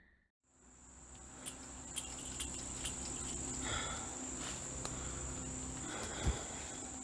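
Insects chirring outdoors in a steady, high-pitched drone, with a few light clicks and one sharper thump a little over six seconds in.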